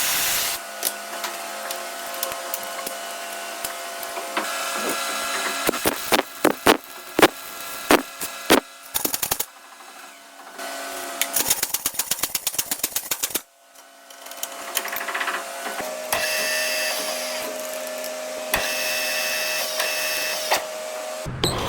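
A metalworking machine running with steady tones, broken by scattered sharp clicks and then a quick run of regular ticks, about five a second, which cut off suddenly about halfway through.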